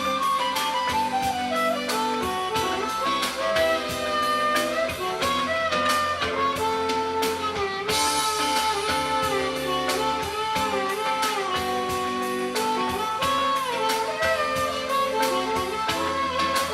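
Instrumental music with a steady beat and a lead melody that bends and glides between notes.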